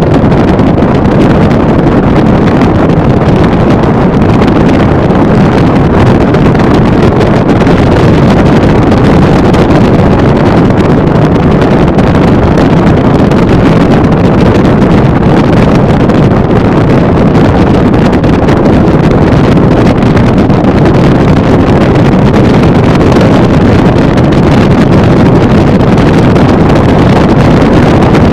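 Loud, steady wind noise on the microphone of a bowrider motorboat running at about 40 mph, mixed with the boat's engine.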